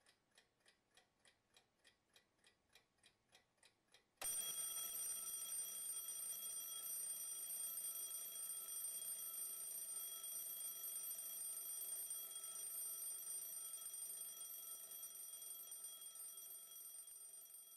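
Faint clock ticking, about three ticks a second, then an alarm clock suddenly starts ringing about four seconds in and keeps ringing, slowly fading.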